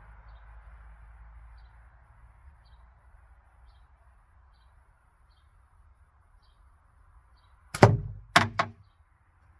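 A slingshot shot into a self-built steel-ball target with a rattle: a sharp, loud clack about eight seconds in, then two quicker knocks half a second later as the target is hit and rattles.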